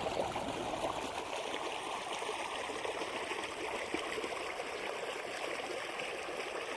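River water running steadily over rocks just above a waterfall, a continuous rushing and trickling.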